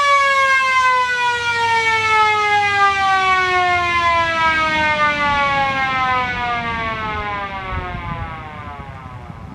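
Skil/Sher Wailing Joe six-port fire siren winding down, its pitch falling steadily and its sound fading away near the end.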